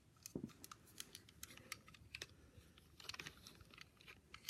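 Faint, irregular light clicks and ticks, a few a second, like small hard objects being handled, with one soft low thump about half a second in.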